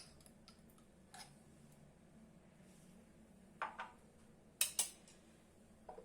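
A small spoon lightly clinking against a dish while spices are spooned into a marinade: a single click about a second in, then two pairs of clicks around four and five seconds in, over a faint steady low hum.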